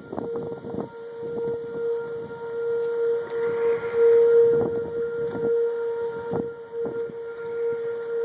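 Outdoor civil defense (tornado warning) siren sounding one steady tone that swells and fades a little in loudness. Short bumps and wind noise hit the phone's microphone over it.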